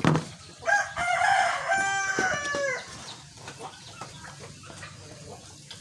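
A rooster crowing once, a call of about two seconds that drops in pitch at the end.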